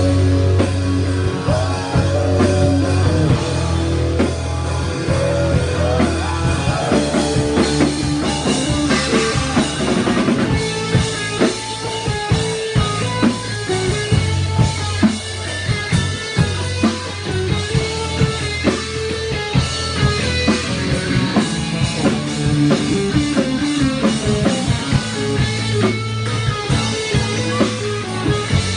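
Live rock band playing a 1980s hair-metal cover, with a drum kit and electric guitar over a steady beat.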